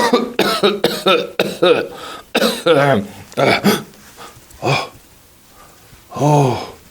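A man's voice making a quick run of short, non-word vocal sounds and grunts, then two single calls after pauses.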